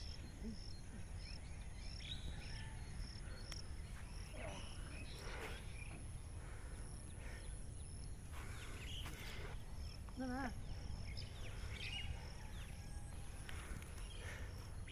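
Open-field ambience: a low, steady rumble with an insect pulsing about two and a half times a second and scattered short bird calls, one a wavering trill near the end.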